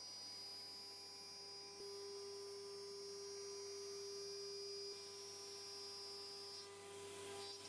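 AXYZ CNC router spindle running as a steady hum while it cuts acrylic sheet. The tone grows stronger about two seconds in and eases back about five seconds in.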